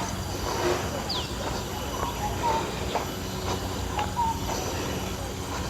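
Birds calling, with a short falling whistle about a second in and brief chirps throughout, over a steady low hum and a regular ticking about twice a second.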